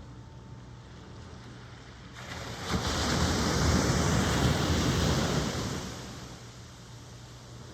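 A single ocean wave breaking and washing up the shore. It swells about two seconds in, rushes loudly for a few seconds, then fades back to the low background surf.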